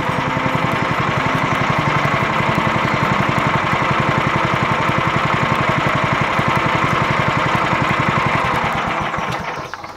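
Portable bandsaw sawmill's gasoline engine running steadily with an even rapid pulse, then dying away near the end as it is shut down.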